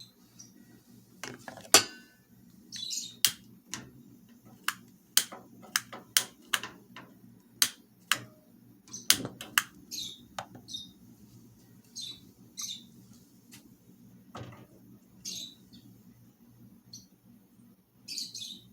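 Kitchen utensils clinking and knocking against dishes in irregular sharp taps, about one to two a second, with short high chirp-like sounds between them over a low steady hum.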